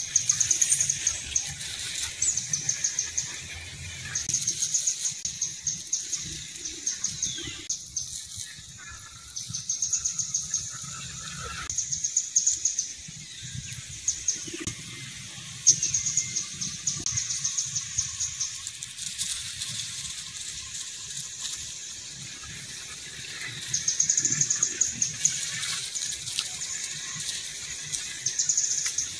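Birdsong in the background: short, rapid high-pitched trills repeated every few seconds, with a single sharp click about halfway through.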